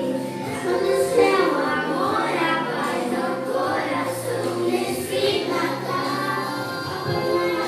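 A group of children singing together with instrumental accompaniment.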